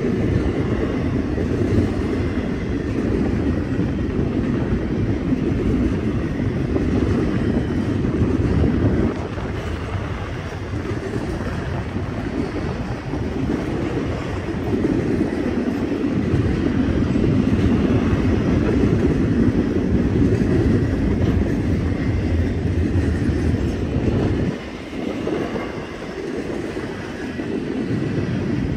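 Freight train rolling past, a steady low rumble of railcars on the rails. The sound dips briefly about nine seconds in and again near the end.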